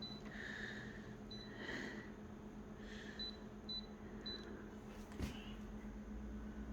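Konica Minolta photocopier's control panel giving short high key-press beeps, about five of them, as a size is keyed in, over the machine's steady low hum. A single click about five seconds in.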